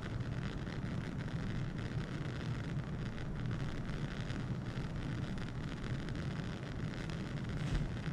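Bunsen burner flame running with a steady low rushing noise, with one brief tap near the end.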